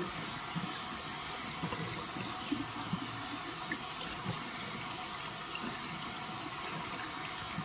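Faucet running steadily into a sink, hot water soaking a washcloth.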